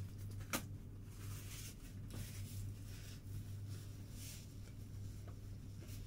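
Soft scratchy rustling of a paper tissue being rubbed between the hands, over a steady low hum, with one sharp click about half a second in.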